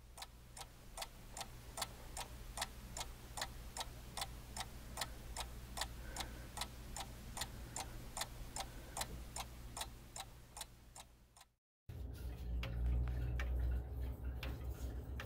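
Howard Miller Haverhill triple-chime grandfather clock ticking steadily, about two evenly spaced ticks a second. After a short break near the end, louder rumbling handling noise and clicks as a finger works the dial's strike/silent lever.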